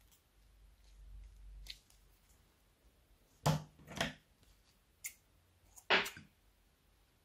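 Hands squeezing a slime-filled rubber balloon, with two sharp handling sounds about halfway through, then a scissors snip cutting off the balloon's tip near the end.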